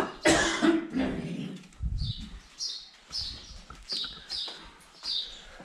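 Footsteps going down polished stone stairs, a short sharp step about every half second, after a loud cough-like voice sound near the start.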